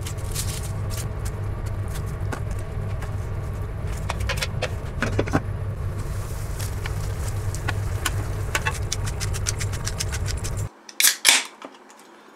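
A pot of soup boiling hard on the stovetop: a steady low rumble with irregular crackling pops from the bubbling. It cuts off suddenly near the end, followed by a couple of sharp clicks.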